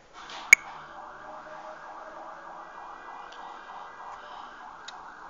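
A PTZ dome camera's pan/tilt drive motor whirring steadily, starting with a sharp click about half a second in.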